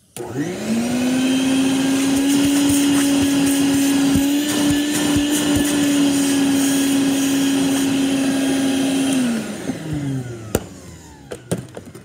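Home Depot Bucket Head wet/dry vacuum powerhead, sitting on a five-gallon bucket, switched on: its motor whines up to speed within a second and runs steadily for about nine seconds, then spins down with a falling whine. A few light knocks follow near the end.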